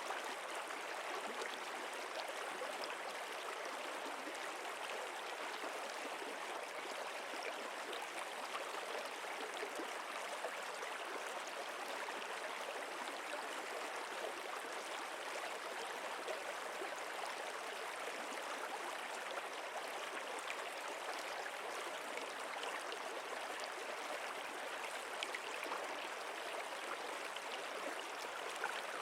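Running water of a stream, a steady unbroken rush with no change.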